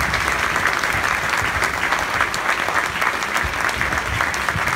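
Large audience applauding: dense, steady clapping.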